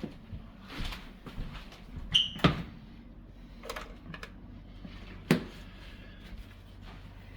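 Pot and kitchen clatter: a handful of separate knocks and clunks, one with a short metallic ring about two seconds in, as a pot of seasoned corn water is set on the stove.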